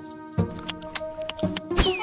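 Light background music: short plucked or tapped notes over a few held tones. Near the end a cartoon baby starts to cry.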